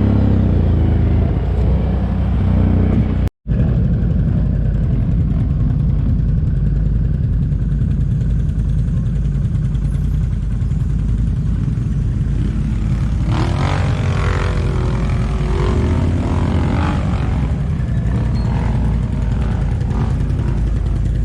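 ATV engines running with a heavy, steady low rumble. The sound cuts out for an instant about three seconds in, and higher, shifting sounds join over the last several seconds.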